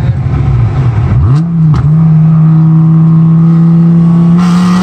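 Dodge Viper V10 with Stage II heads and cam and a catless Belanger exhaust, heard from inside the cabin: the revs fall, a quick blip comes with a gear change about a second and a half in, then the engine pulls loud under throttle with the revs climbing slowly.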